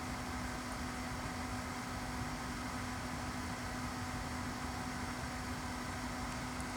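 Celcia WAP-02EA20 portable air conditioner running at a constant setting, a steady hum with one low tone over an even noise that does not change.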